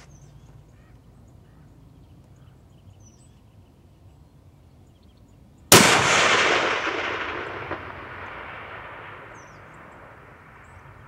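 A single shot from a custom 7mm Winchester Short Magnum rifle firing a 175-grain bullet, a sudden loud crack about halfway through, followed by a long echo that dies away slowly over about four seconds.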